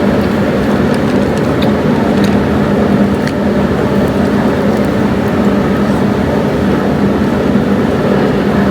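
Steady road and engine noise heard inside a moving vehicle, a constant loud low drone.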